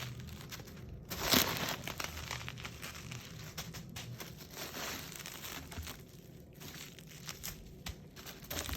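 Packaging being handled and unwrapped by hand: irregular crinkling and rustling, with a louder crackle about a second and a half in.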